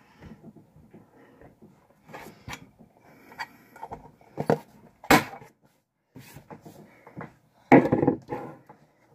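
Scattered knocks, clicks and rustles of hands handling tins of dip tobacco, with a sharp knock about five seconds in and a louder rustling burst near the end.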